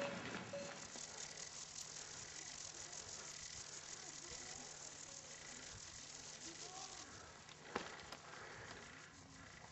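Faint outdoor ambience: a steady hiss with a low hum underneath, and a single sharp click near the end.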